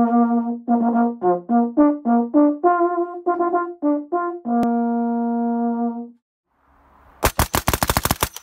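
A brass instrument plays a short call of separate notes, ending on one long held note. After a brief pause, near the end, a Vickers machine gun fires a rapid burst.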